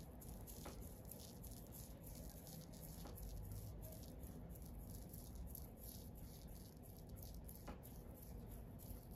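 Fine model-railway ballast grit faintly rattling and pattering as it is tipped from a small plastic pot and worked along the track with a small brush: a steady scatter of tiny irregular ticks, with a few slightly sharper clicks.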